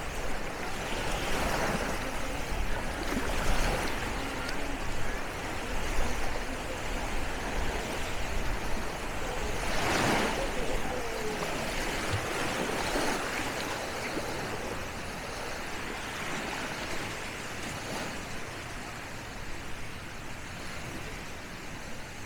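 Small waves washing onto a sandy beach, swelling and breaking every few seconds, the biggest break about halfway through, with faint voices of other people in the background.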